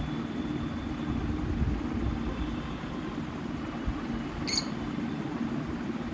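Steady low background rumble, with one short high chirp from a lovebird about four and a half seconds in.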